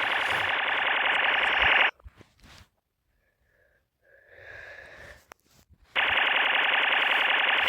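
A loud, harsh buzzing noise with a fast pulse that cuts off abruptly about two seconds in, followed by a few seconds of faint scattered sounds, then the same buzz returns abruptly about six seconds in.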